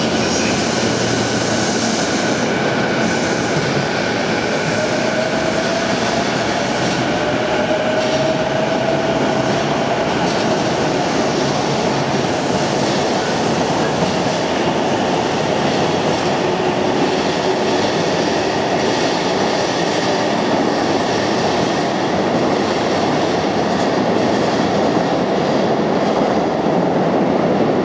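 JR East E233-series electric commuter train running along an underground station platform: steady loud wheel and rail noise, with a faint whine from the drive rising in pitch for a few seconds as it picks up speed.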